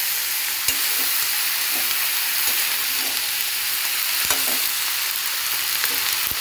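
Cauliflower stalks, eggplant and potato sizzling steadily in a metal kadai while a metal spatula stirs them, knocking and scraping against the pan a few times.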